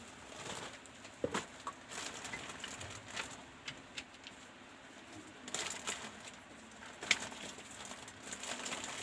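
Pigeons cooing faintly, with a few sharp clicks and knocks, the loudest about a second in and about seven seconds in.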